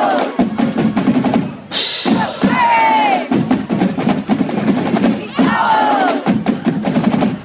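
Marching band drumline playing a fast cadence: rapid snare strokes over bass drums, with a cymbal crash about two seconds in. A short falling pitched sound recurs about every three seconds over the drumming.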